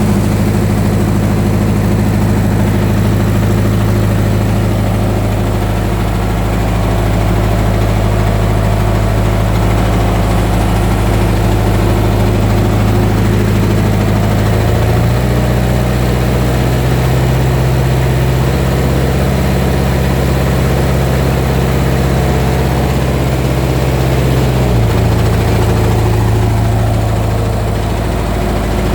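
Rebuilt Mitsubishi 4D32 four-cylinder diesel engine running on test, idling steadily. About halfway through its speed rises a little and holds, then drops back to idle near the end.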